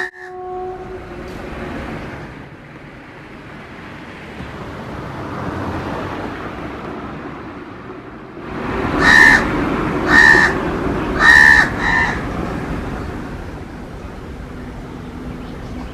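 A crow cawing four times in quick succession, harsh and rasping, about halfway in, over a steady background hiss.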